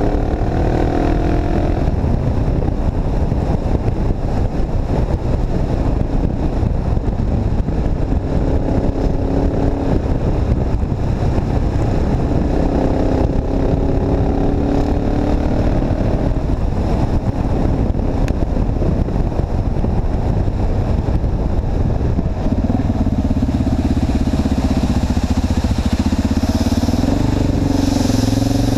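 KTM 690 Enduro R single-cylinder motorcycle engine running under way, its note rising and falling with the revs and getting stronger about 22 seconds in, over a steady rush of wind on the microphone.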